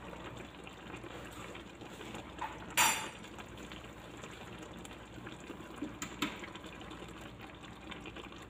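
Creamy chicken-and-spinach sauce simmering faintly in a frying pan, with one sharp click about three seconds in and a few lighter clicks around six seconds.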